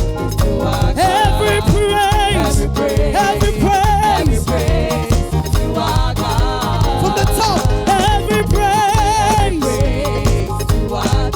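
Upbeat gospel praise music: a full band with heavy bass and a steady dance beat under a lead melody sung with wide vibrato.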